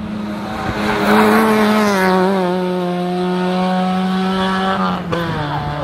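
Citroën Saxo Racing Start 1600's four-cylinder engine running hard at high revs as the race car climbs past, loudest with a brief hiss of tyre noise about a second in. The engine pitch dips around two seconds in and steps down again about five seconds in.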